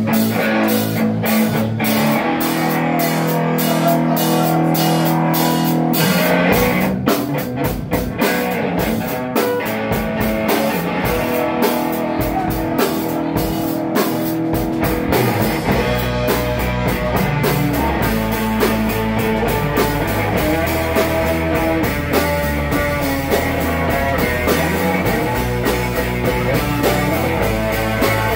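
A live rock band playing electric guitars and a drum kit, with cymbals ringing. Deep bass guitar notes join about halfway through.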